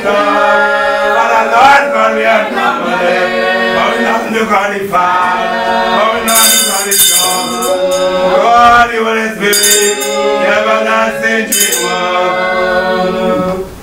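Spiritual Baptist congregation singing a slow, chant-like hymn, with three short high-pitched bursts between about six and twelve seconds in.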